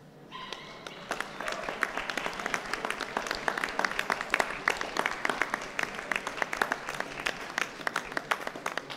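Audience clapping, swelling up in the first second and then going on steadily.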